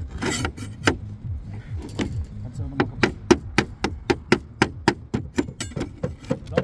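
A hammer striking metal in quick succession, about four sharp blows a second from about three seconds in, after a few scattered knocks and some scraping: a slate ripper being driven up under a roof slate to reach its nails.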